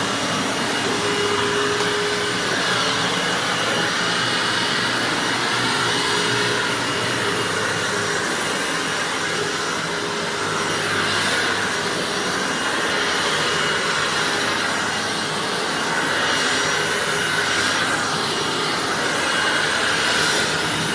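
Hoover WindTunnel self-propelled bagged upright vacuum running steadily on carpet, with a slight waver in its sound.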